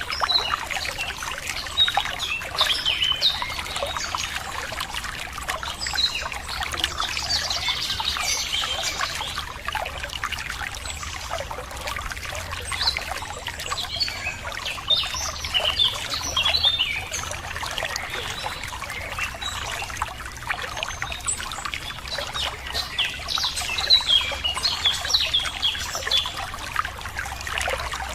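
Water trickling and running over stones with steady splashing, and birds chirping and twittering over it in short bursts, busiest in several spells.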